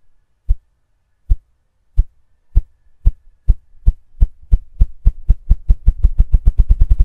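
Ruffed grouse drumming: deep wingbeat thumps, slow at first and spaced over half a second apart, speeding up steadily into a rapid flutter near the end.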